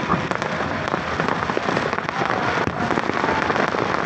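Fireworks crackling steadily, with many small pops running together into a dense crackle.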